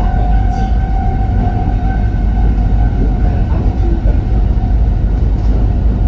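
Alishan Forest Railway train running, heard from inside the passenger carriage: a steady low rumble, with a steady whine over it that fades out about three and a half seconds in.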